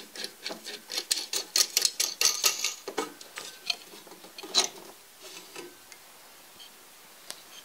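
A rapid run of dry clicks and ticks as a round mirror in its mount is turned by hand on its stand. The clicks are dense for about five seconds, then thin out, with one last click near the end.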